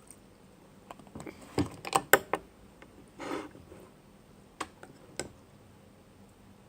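Slime being worked by hand or spoon in a bowl, giving a run of sharp clicks and sticky pops. They are bunched from about one to two and a half seconds in, with a short noisy burst in the middle and two more clicks later.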